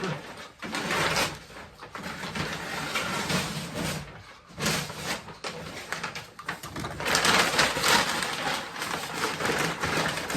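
Cardboard and packing material rustling and scraping as they are handled and fitted around a typewriter in a shipping box, in uneven stretches that grow louder in the second half.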